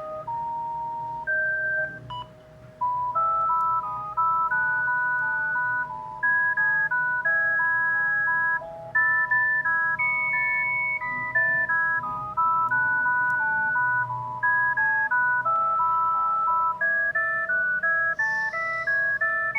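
Panasonic GD75 mobile phone playing a ringtone melody through its small speaker. Its notes are clean, electronic-sounding tones, with a held lower note under a stepping tune and several notes at once. There is a short gap about two seconds in before the tune carries on.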